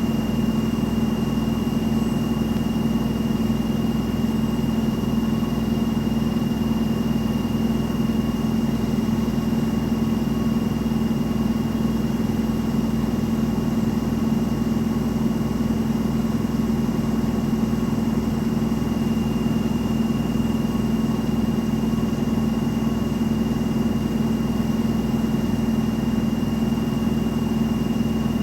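Front-loading washing machine in its spin cycle, the drum turning at a steady high speed with a constant hum and a thin high whine.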